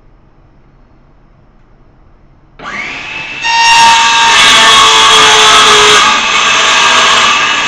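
DeWalt 18-volt cordless circular saw spinning up with a rising whine about two and a half seconds in, then running loud and steady as the blade cuts into wood flooring at a shallow quarter-inch depth.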